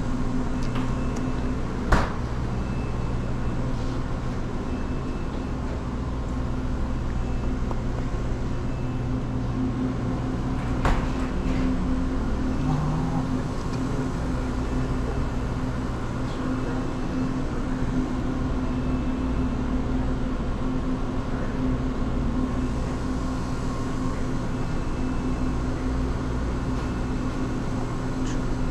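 Steady mechanical hum of a convenience store's refrigerated cases and ventilation, with a sharp click about two seconds in and another around eleven seconds in.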